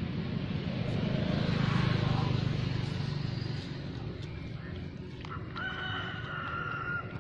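A rooster crowing, ending in one long held note near the end, over a steady low hum.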